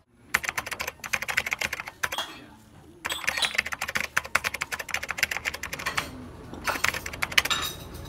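French press plunger being pushed down, giving several bursts of rapid clicking and scraping.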